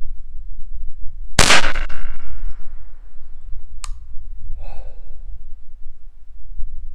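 A single shot from a Ruger 10/22 .22 LR rifle about a second and a half in, sharp with a short ringing tail. A sharp click follows about two and a half seconds later, then a brief softer sound, over a steady low rumble.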